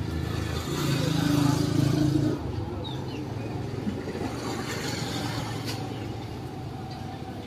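Road traffic: a motor vehicle's engine grows louder for about two seconds near the start, then settles into a steady low traffic hum.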